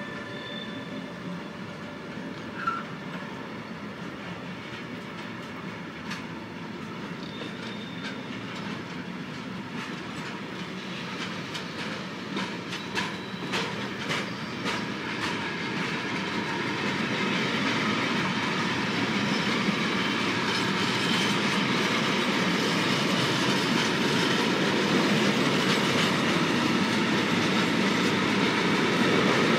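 Container freight train rolling past, its flat wagons' wheels giving a steady rumble and clickety-clack. A quick run of clicks comes about halfway through, and the train grows louder over the second half.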